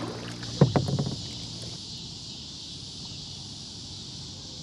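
A brief clatter of sharp knocks near the start, then a steady high chirring of crickets and other insects.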